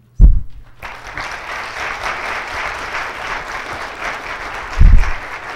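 Audience applauding steadily. A loud low thump comes just as the clapping starts, and another comes near the end.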